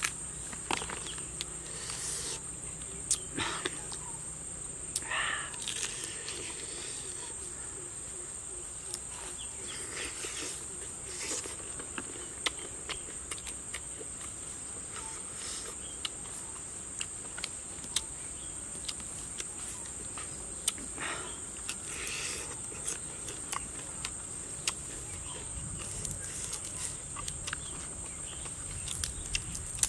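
A person tearing apart and chewing roasted whole frogs, with scattered short clicks and smacking sounds of eating. Behind it, a steady high-pitched drone of insects.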